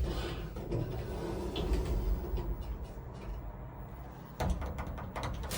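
ThyssenKrupp passenger lift's sliding doors opening on arrival at a floor, with a low mechanical rumble, then a run of clattering knocks starting a little over four seconds in.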